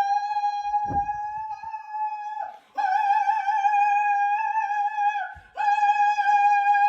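A high, steady voice-like note, held about two and a half seconds at a time and broken twice by short pauses, standing in for an over-the-top comic snore.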